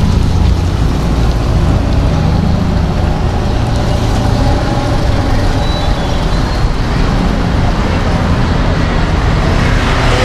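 Steady road-traffic noise on a city street, with a heavy low rumble throughout.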